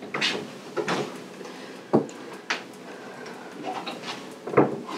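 Kitchen cupboard doors and drawers opening and closing: a string of short knocks and clicks, with sharper thumps about two seconds in and near the end.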